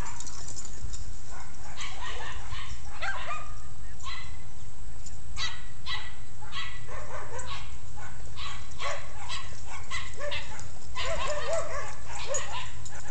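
Dogs barking and yipping in a rapid run of short calls, busiest near the end.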